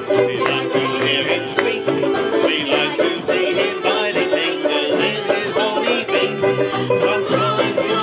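A band of vellum-headed banjos with a piano accordion playing a lively tune together: quick plucked banjo notes over the accordion's held chords.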